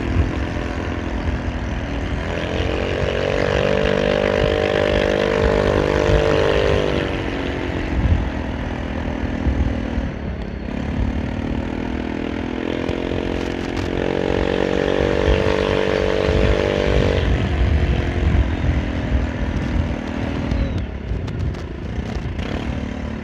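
Rusi RFi175 motorcycle engine running under way on a winding downhill road. The engine note swells twice, for several seconds each time, and eases off in between. A steady rumble of wind buffets the microphone underneath.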